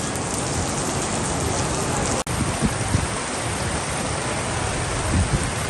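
Steady rain falling, an even dense hiss with scattered drop impacts. The sound cuts out for a split second about two seconds in.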